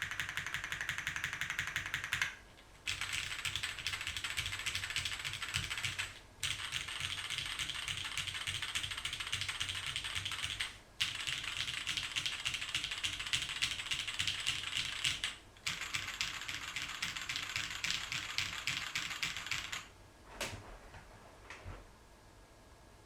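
Fast, continuous typing on a mechanical keyboard with vintage Cherry MX Brown tactile switches on a carbon fibre plate, broken by four brief pauses. The typing stops near the end, followed by two lone key sounds.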